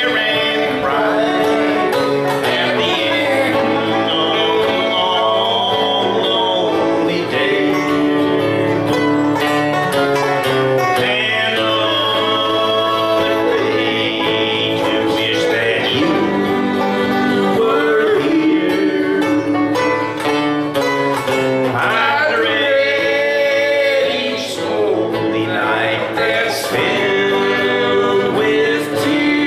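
Acoustic guitar strummed and banjo picked together, playing a country song live.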